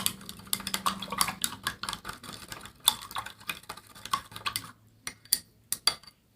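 A utensil stirring slime mixture of glue and baking-soda water in a container, making quick clicks and taps against its sides. The clicking is dense for about four and a half seconds, then thins to a few separate taps.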